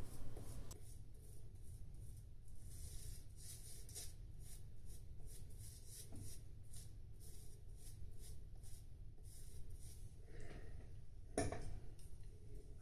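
Faint scraping of a CV Heljestrand no 7 straight razor shaving against the grain: a rapid run of short strokes across stubble, several a second. A single sharp knock comes near the end.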